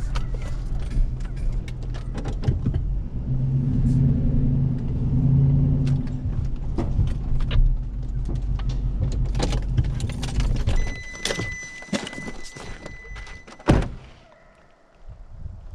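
Nissan Titan pickup running on a dirt road with a steady low engine drone and small knocks from the cab. The engine stops about eleven seconds in, a steady electronic door-open chime sounds for a few seconds, then the door shuts with one loud thunk.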